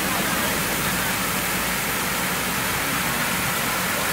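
Fountain water jets spraying onto a pond, a steady hiss of splashing water, with a low steady hum underneath.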